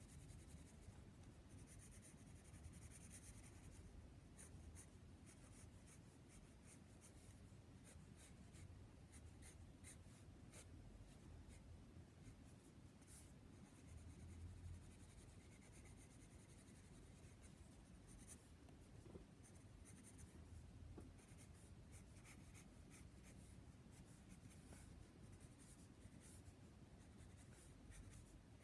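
Faint graphite pencil scratching and gliding over sketch paper in many short, quick strokes.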